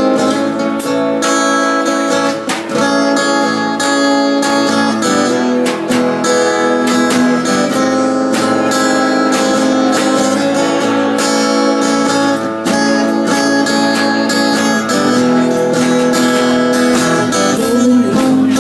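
Acoustic guitar strummed in a steady rhythm, with a drum and cymbal played along, in an instrumental passage without singing.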